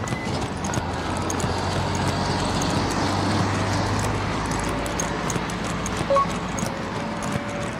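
Road traffic noise, with a vehicle's low engine hum that stops a little past halfway. A short beep sounds once, about six seconds in.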